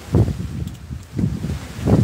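Wind buffeting an outdoor microphone in short gusts.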